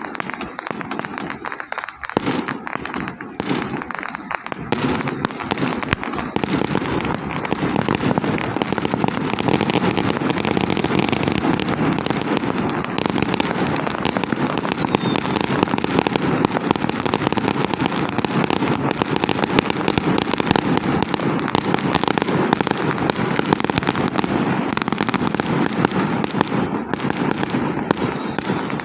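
A long string of firecrackers going off in a dense, unbroken crackle that builds up over the first several seconds and then holds steady.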